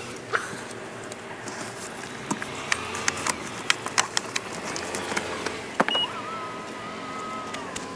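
Clatter and knocks of gear being loaded into a car's rear hatch. About six seconds in, a short beep, then the steady motor whine of the Ora Good Cat GT's power tailgate closing.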